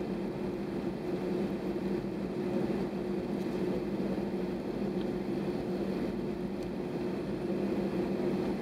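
Airbus A320's engines running at low thrust while the aircraft taxis, heard from inside the cabin as a steady hum with a held low drone.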